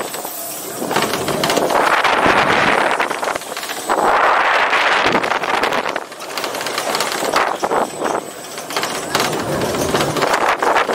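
Air rushing over the microphone of a camera riding on a swinging boat ride, a noisy rush that swells and fades in waves as the boat swings back and forth.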